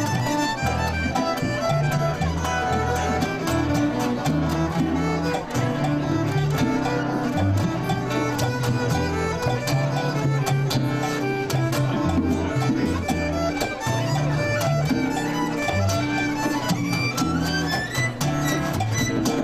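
Fiddle-led instrumental music with guitar and a stepping bass line, with a quick rising run of notes near the end.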